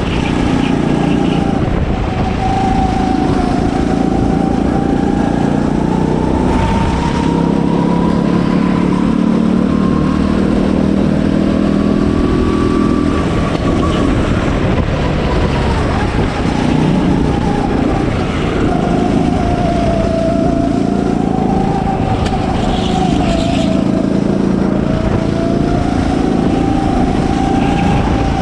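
Go-kart running at speed on a track, its motor note rising and falling slowly as it goes through the corners.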